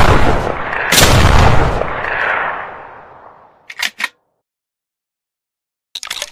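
TOZ over-and-under shotgun firing twice, the first report right at the start and the second about a second later, each followed by a long rolling echo that fades out over a couple of seconds. Then a pair of short clicks near the middle and a few more clicks near the end.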